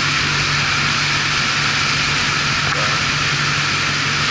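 Wakeboat under way at cruise: the Indmar Monsoon 350 small-block V8 hums steadily under a constant rush of water along the hull. The exhaust is piped down into the water by a Fresh Air Exhaust, so water and engine-bay noise are heard more than the exhaust.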